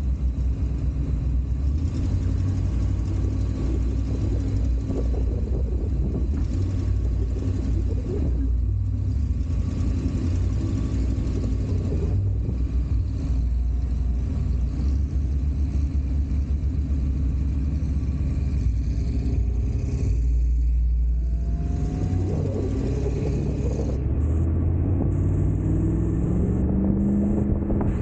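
Off-road vehicle driving over sand, picked up by a camera on its hood: a steady low engine and drivetrain rumble, with the engine pitch climbing over the last several seconds as it accelerates.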